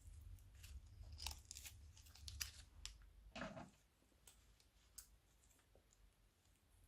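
Faint scattered clicks and crackles of crunchy slime and plastic piping bags being handled, thickest in the first three seconds, with one short rustling swish about three and a half seconds in.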